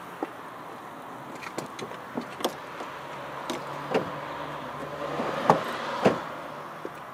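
A car passing by: its sound builds over a few seconds, peaks and fades away, with a low hum. Scattered sharp clicks come throughout, two louder ones at the height of the pass.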